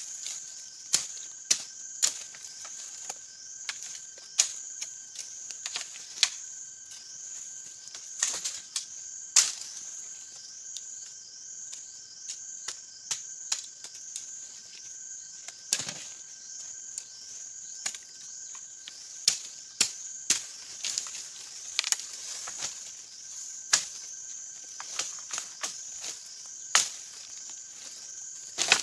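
A steady high-pitched insect chorus buzzing, with a second thin steady tone beneath it, broken throughout by frequent sharp snaps and crackles of dry bamboo stems and leaf litter being handled and stepped on; the snaps are the loudest sounds.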